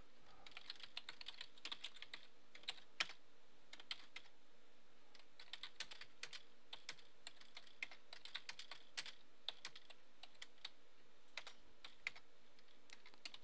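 Typing on a computer keyboard: faint, irregular keystrokes, some sharper than others, over a low steady hiss.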